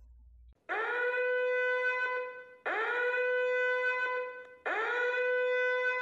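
Warning alarm sound effect: three long horn-like tones, each sliding up quickly at the start and then holding steady for about two seconds, with short gaps between.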